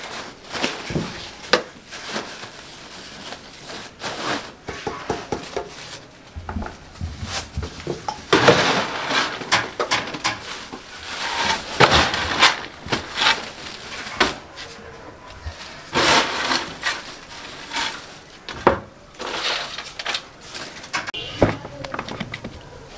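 Thin plastic shopping bag crinkling and rustling as crunchy fried gathiya (nimko) is scooped into it from a metal tub and the filled bag is pressed and handled, with irregular crackles and knocks.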